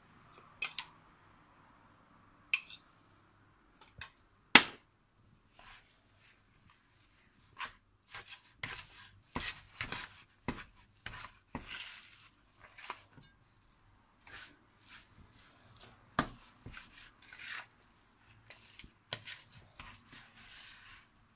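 A metal spoon mixing a thick batter of grated zucchini and flour in a plastic bowl. There are a few sharp knocks of the spoon against the bowl in the first five seconds, then a long run of irregular short stirring and scraping strokes.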